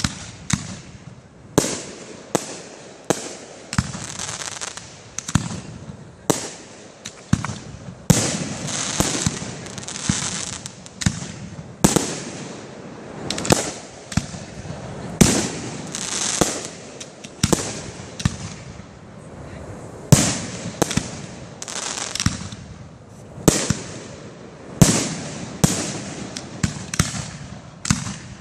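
Aerial firework shells bursting one after another in a professional fireworks display. Sharp bangs come roughly once or twice a second, with a rush of noise between them.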